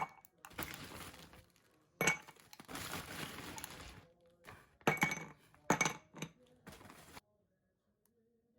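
Glassware and dishes clinking and being handled, several sharp clinks with shuffling between them, stopping about two-thirds of the way through.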